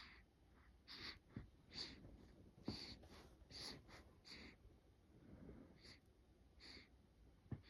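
Faint, quick snuffly breathing of a newborn baby: short puffs through the nose, about one a second, with a few soft low bumps.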